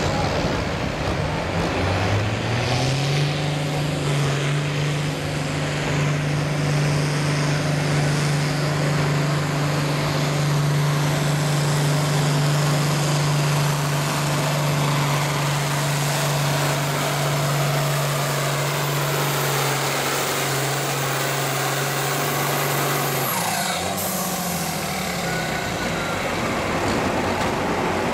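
An International Harvester Farmall 1206 Turbo's turbocharged six-cylinder diesel pulls a weight-transfer sled under full load. The engine climbs to a steady pitch about two seconds in and holds it for around twenty seconds. Near the end it drops away as the pull finishes.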